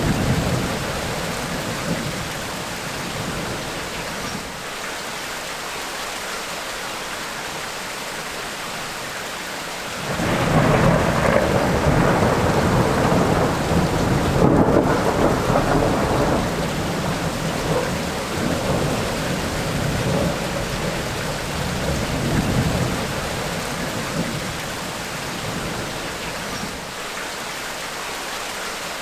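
Steady heavy rain of a tropical rainstorm, with a rumble of thunder fading out at the start. About a third of the way in a loud roll of thunder breaks in suddenly, rumbling and swelling several times for over ten seconds before dying back to the rain.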